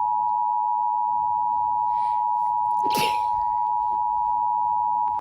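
Emergency Alert System attention signal: two steady tones sounding together, held without a break, then dropping sharply in level right at the end.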